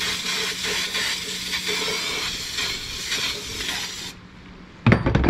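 Aerosol can of Tectyl corrosion inhibitor hissing as it is sprayed onto an outboard engine's head deck, stopping about four seconds in.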